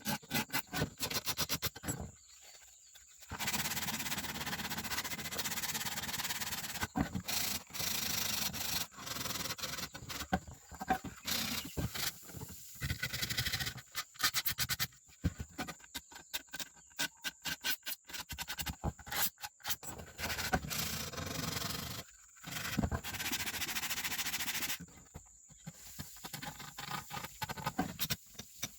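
Abrasive rubbing on a surface by hand, in irregular strokes: some long and some in quick runs, with short pauses.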